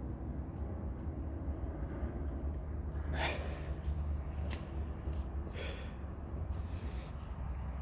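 A man's heavy breaths of effort, two strong exhales a couple of seconds apart, over a steady low hum, as he strains to force a repair plug into a tire puncture that is hard to get in.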